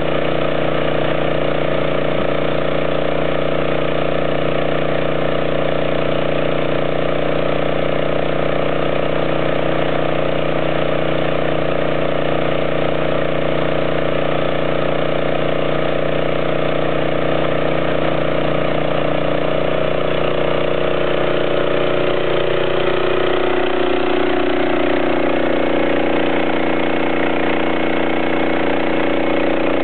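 An engine running steadily at a constant speed, a low steady hum with no revving.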